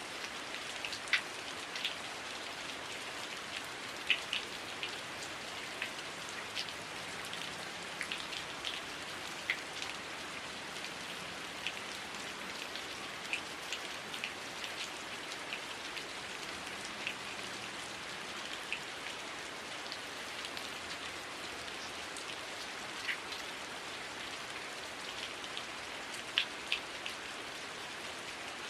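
Heavy rain falling steadily, a continuous hiss with scattered louder drops ticking close by.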